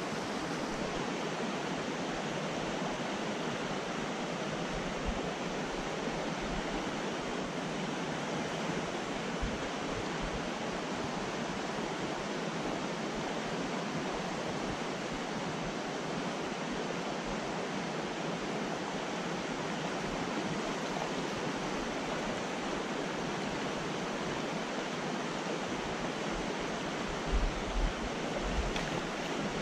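Steady rush of a rocky mountain trout stream running fast over a riffle. A couple of low thumps near the end.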